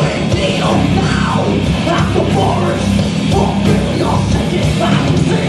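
Heavy metal band playing live, with distorted guitar and drums at a steady loud level. The vocalist is yelling into the microphone over the band.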